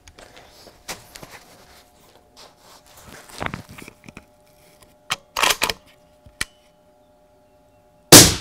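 Knocks and rustles of a precision bolt-action rifle being handled and settled into position on a wooden barricade, then a single loud rifle shot near the end.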